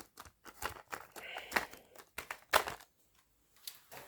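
Packaging crinkling and rustling as it is handled, in irregular crackles, the loudest about two and a half seconds in, dying away about three seconds in.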